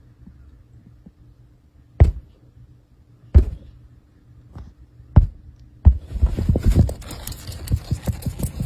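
A cat inside the fabric dust cover under a piece of furniture thumps against it four times, dull and loud, then scrambles out with a rapid flurry of scratchy rustling and scrabbling. A faint steady hum lies underneath.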